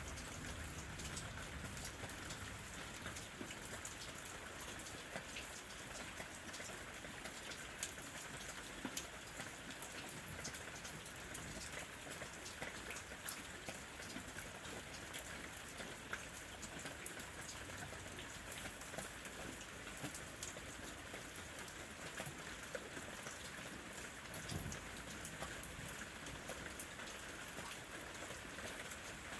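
Light rain falling steadily, a continuous hiss with many small drops ticking on surfaces.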